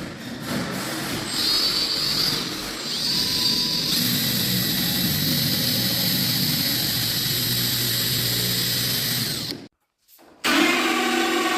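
Power drill boring the hole for a door lockset. The motor whine climbs in steps over the first few seconds, then holds steady under load, and stops abruptly near the end.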